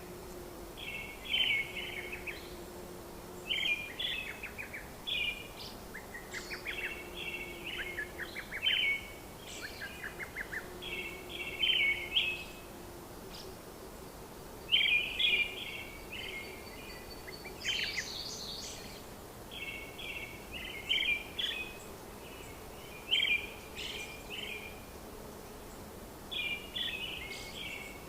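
Birds chirping and singing in short, repeated phrases every second or two, over a faint steady hum.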